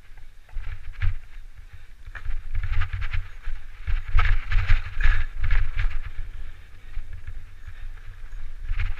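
Mountain bike riding a dirt singletrack: wind buffeting the mounted camera's microphone as a heavy uneven rumble, with rattling and clattering from the bike over bumps in the trail, busiest about four to five and a half seconds in.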